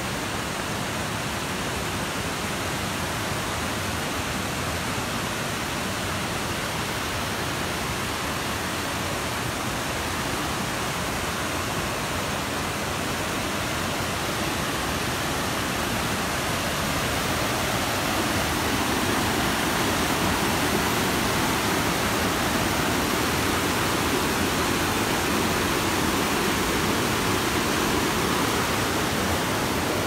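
A cascading waterfall rushing over rock ledges: a steady, even roar of falling water. It grows a little louder and fuller a bit past halfway through.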